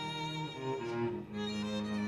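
Violin and cello playing together in slow, sustained bowed notes, the melody moving from note to note about every half-second.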